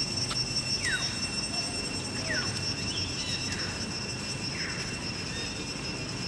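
Steady high insect drone made of several constant shrill tones over a low background rumble, with four short falling calls about a second apart in the first five seconds.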